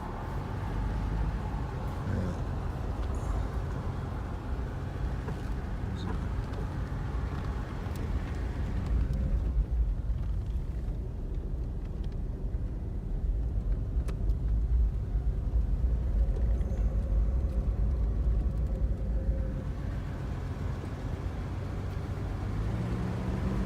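Car driving slowly along a road: steady engine and tyre rumble heard from inside the cabin.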